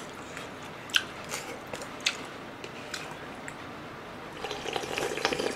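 Close-miked eating sounds: a few sharp wet mouth clicks and chewing smacks, then, from about four and a half seconds in, a louder slurping as Nagasaki champon broth is drunk straight from the bowl.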